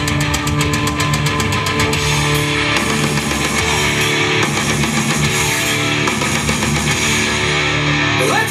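Heavy rock music with electric guitar and drums, with a rapid drum beat in the first couple of seconds.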